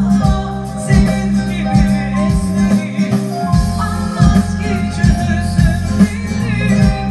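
Korg Pa4X arranger keyboard played live: a melody over an accompaniment with a steady drum beat and bass.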